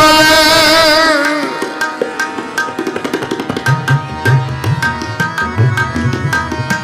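Kirtan music: a held sung note ends about a second and a half in, then tabla plays a quick, dense rhythm with deep bass-drum strokes under steady harmonium notes.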